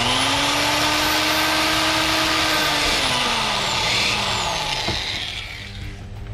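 Cordless drill with a step bit drilling into the plastic center console: the motor whines up to speed, holds steady, slows about three seconds in, gives a short second burst around four seconds, and stops about five seconds in.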